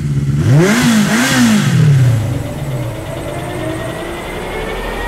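An engine revving up and dropping back twice in quick succession, then settling into a steady running drone with a faint, slowly rising whine.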